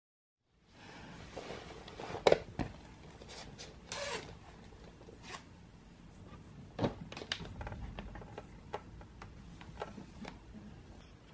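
Scattered soft knocks and clicks with a brief rubbing sound about four seconds in, over faint room noise: small handling noises around a bathroom scale.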